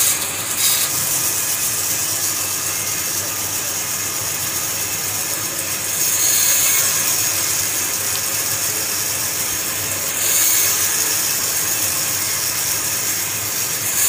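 Band saw running, with a steady hiss and whine, as it cuts strips of wood into small blocks. The sound grows louder twice, about six and ten seconds in.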